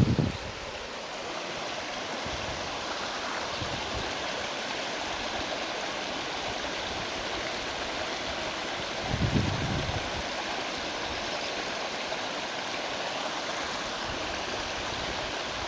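Waterfall rushing steadily, an even hiss of falling water. A brief low rumble, like a gust on the microphone, swells and fades about nine seconds in.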